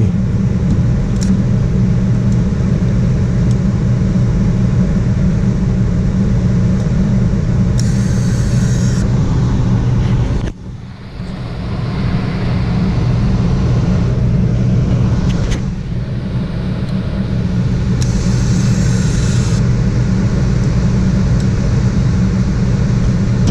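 Gas furnace running, a steady low hum of its blower and burners, with a brief drop in level about ten seconds in and two short hisses.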